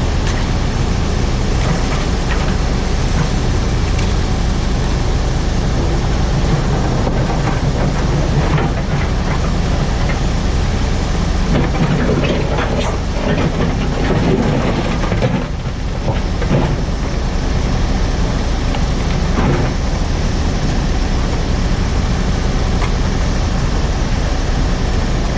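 JCB 4CX backhoe loader's diesel engine running steadily under load, with scattered knocks and scrapes as the bucket tears up asphalt, most of them around the middle.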